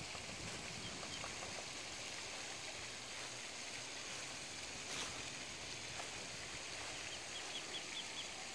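Steady splashing hiss of a lake's aerating fountain, with a quick run of about six short, high bird peeps near the end.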